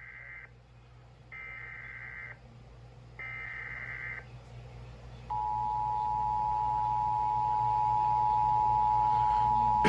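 NOAA Weather Radio Emergency Alert System signal: three bursts of SAME header data tones, about a second each and about two seconds apart, then a steady, louder alert tone starting about five seconds in. This sequence marks the start of a tornado warning broadcast.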